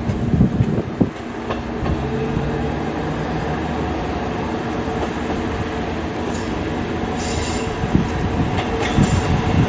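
Diesel railcar running on the line, its engine a steady drone, with a brief high wheel squeal about seven seconds in and a few rail clicks near the end.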